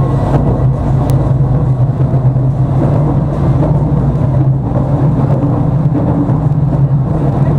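Tram running at speed, heard from inside the car: a steady rumble of wheels on the rails with a constant low hum under it.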